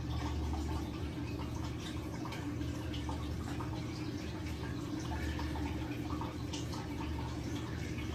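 Steady low room hum with faint, scattered small clicks and ticks.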